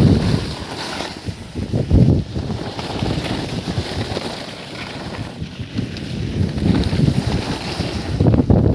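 Wind buffeting and rumbling on the microphone of a camera moving down a ski slope, rising in gusts about two seconds in and again near the end.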